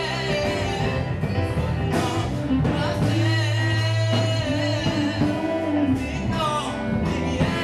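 A man singing into a microphone over musical accompaniment, holding and bending long notes above a steady bass.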